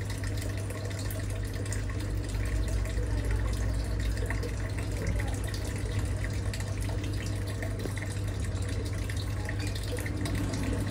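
Water running and bubbling steadily in an aquarium over a constant low hum from the tank's pump.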